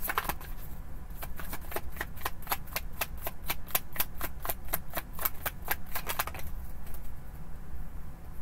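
A deck of tarot cards being shuffled by hand, making a quick, even run of crisp card clicks, about five a second, that stops about six seconds in.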